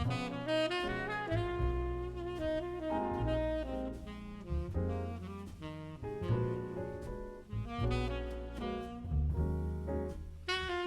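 Background music: an instrumental jazz track with saxophone melody over a bass line.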